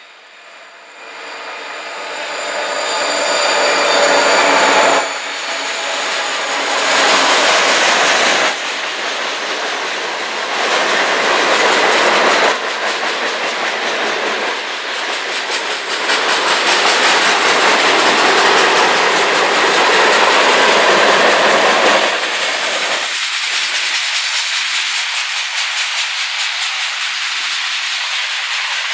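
A CSX diesel freight locomotive passing close with its engine running, followed by a long string of loaded flatcars rolling by with loud, steady wheel noise that eases off for the last several seconds.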